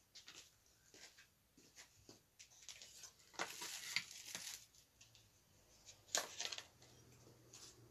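Faint kitchen handling sounds: a stainless steel bowl and a plate being picked up and set down on a table, with light clinks and rustling. The louder clusters come a little past three seconds and around six seconds.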